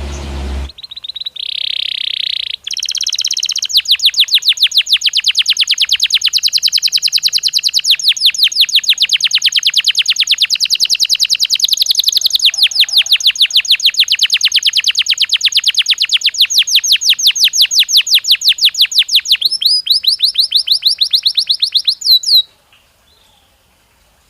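Belgian canary singing one long song: a short buzzy note, then a fast rolling trill of repeated high notes, about seven a second. The notes change pitch in the last few seconds, and the song then stops sharply.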